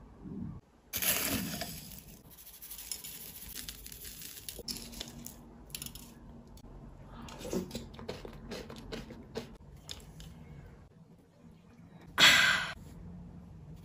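Drink-making handling sounds: scattered crinkles, clicks and crunches, with a loud noisy burst about a second in and a short loud crunch near the end as a paper straw is pushed down through the cream topping into the iced coffee.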